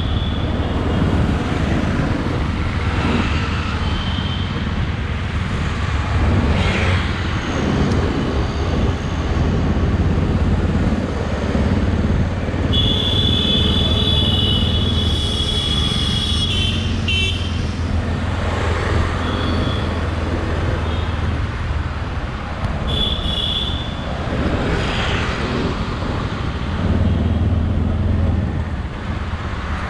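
Busy city street traffic, mostly motorbikes and scooters running close by, with vehicle horns honking several times: short toots about four seconds in and near the end, and a long honk of a few seconds near the middle.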